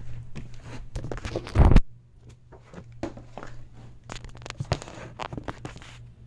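Handling noise as a camera is picked up off the floor and moved: scattered knocks, rubbing and clicks, the loudest a heavy thump about a second and a half in, over a steady low hum.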